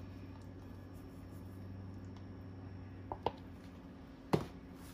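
Thick cream scraped with a spatula from a plastic tub into a glass blender jar, faint, over a steady low hum. Two sharp knocks come a little after three seconds and a little after four seconds in.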